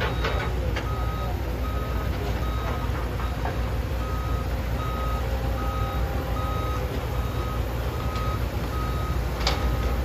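A heavy-machinery backup alarm sounding a steady run of short, evenly spaced beeps on one tone, over the steady low rumble of diesel excavators and dump trucks working. A single sharp clack near the end.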